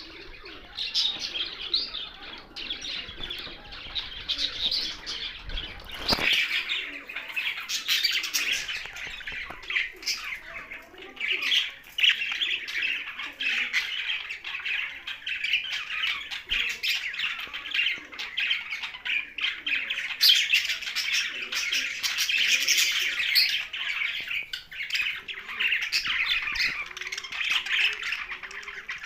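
Pet budgerigars and parrots chattering and squawking together in a continuous stream of short calls, with one sharp knock about six seconds in.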